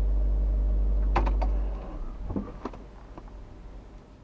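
Steady low drone of a Range Rover's cabin while driving, engine and road hum, which cuts off about two seconds in. A few light clicks and knocks follow over a much quieter background.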